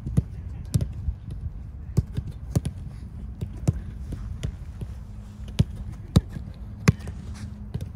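Footballs being kicked and trapped in a passing drill on grass: sharp thuds about once a second at irregular spacing, some close and loud, others farther off, over a steady low rumble.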